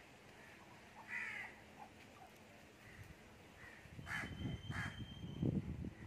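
Short harsh cawing bird calls, one about a second in and two more close together about four seconds in, while a white duck dabbles its bill in shallow pond water, making uneven low splashing and slurping in the last two seconds.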